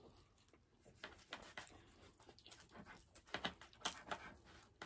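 Faint eating sounds: soft chewing and mouth clicks, with a plastic knife and fork scraping and tapping on a plate. A few louder clicks come between about three and four seconds in.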